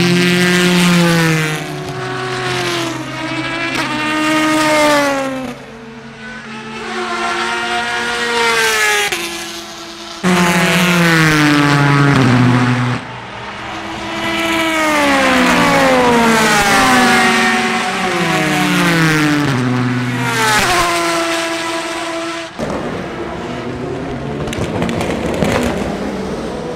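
Endurance race cars passing one after another at speed, each engine note sliding down in pitch as the car goes by. Near the end the engine notes stop abruptly and give way to a steady hiss with faint crackles.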